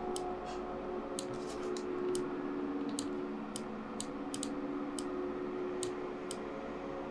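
Computer mouse clicking about a dozen times at uneven intervals while spline points are selected and dragged, over a steady low electrical hum.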